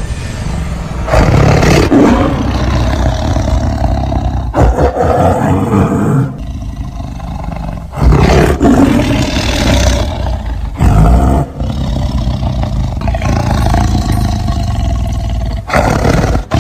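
Big cat roaring again and again: about five loud roars a few seconds apart, with a low rumble between them.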